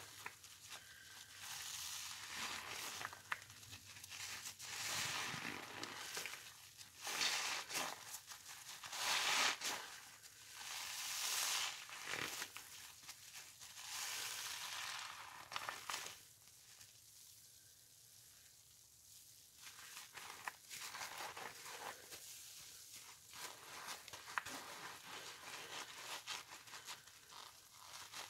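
Wet sponges soaked in pine cleaner being squeezed, squishing with crackling suds in a series of irregular squeezes. There is a quieter pause a little past halfway.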